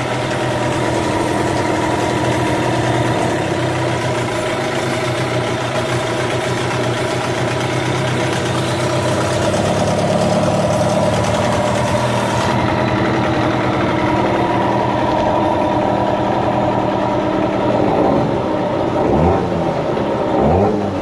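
Hangkai 15 hp two-stroke outboard motor running steadily with its lower unit in a tub of water. It is revved briefly a few times near the end.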